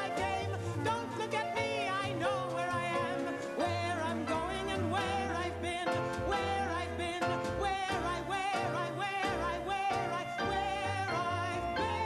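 A woman singing into a microphone with instrumental accompaniment, holding wavering notes with vibrato over sustained low notes.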